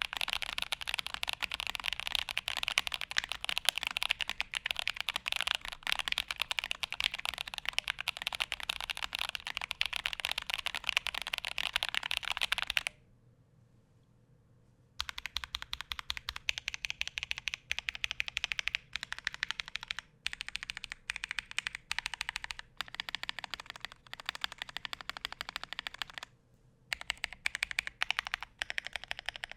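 Modded Gamakay K77 mechanical keyboard with Holy Boba tactile switches on an acrylic plate: fast continuous typing, then after a two-second pause, modifier keys pressed one at a time in short runs of clicks broken by brief gaps.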